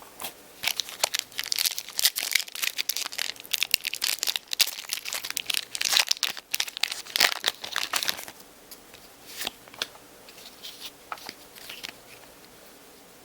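A trading card booster pack wrapper being torn open and crinkled in the hands: dense crackling for about eight seconds, then a few sparse rustles.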